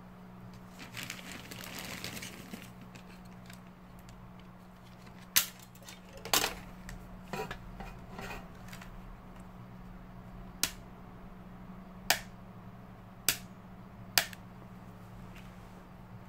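Small hard objects being handled on a desk: a brief rustle, then about eight sharp clicks and knocks spaced one to two seconds apart, over a steady low hum.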